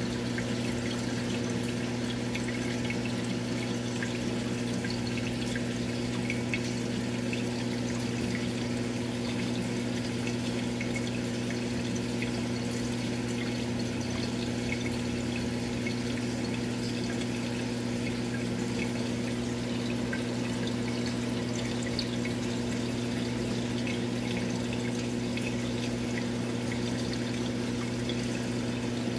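Steady electric hum of an aquarium pump with water bubbling and trickling over it.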